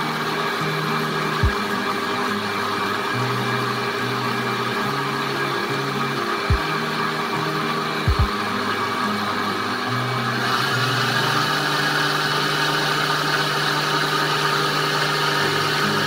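A high-speed countertop blender runs steadily, mixing a thin batter of chickpea flour, yogurt and water, and grows louder and brighter about ten seconds in. Background music with a changing bass line plays underneath, with a few short thumps.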